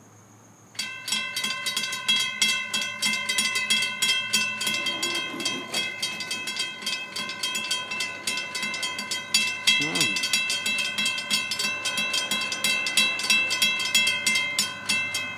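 Railroad grade-crossing bell starting about a second in and ringing in rapid, even strokes, several a second, then stopping suddenly at the end. It is the crossing warning for an approaching train.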